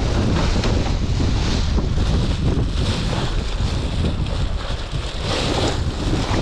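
Wind buffeting the microphone over the wash of sea surf, with a clear plastic bag of ice rustling and crinkling in short spells as it is handled in a cooler box.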